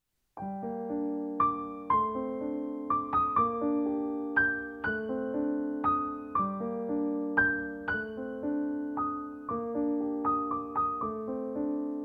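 Piano music: single notes struck one after another, about two a second, each ringing and fading. It starts about half a second in, after a brief silence.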